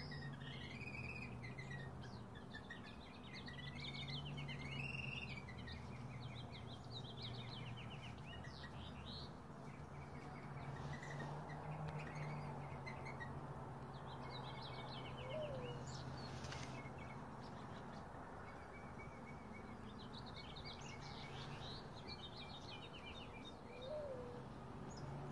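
Birds chirping and twittering in many short calls and trills, over a steady low hum.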